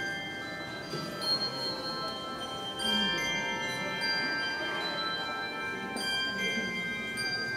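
Handbell choir playing a piece: chords of bells struck together about every second or two, each ringing on under the next.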